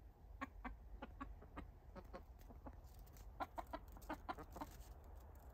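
Silkie chickens clucking softly: short, quiet clucks at an uneven pace, coming more thickly a little past the middle.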